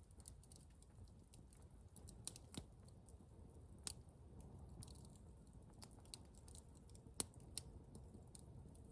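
Faint campfire crackling: scattered, irregular sharp pops and ticks from burning wood over a low steady background.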